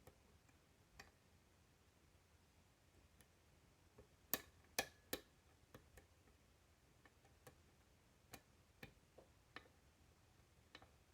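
Faint, irregular metallic clicks of a lock pick and tension wrench working the pins of a five-pin pin-tumbler lock cylinder, with three louder clicks in quick succession about four seconds in.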